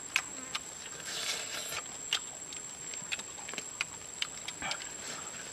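Scattered sharp clicks and short crackles of small pieces of cooked food being broken apart, peeled and eaten by hand.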